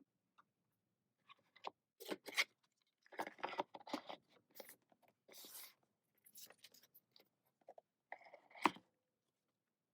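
Paper and plastic album packaging being handled: irregular rustling, crinkling and scraping as inserts are pulled out, with a sharp tap near the end.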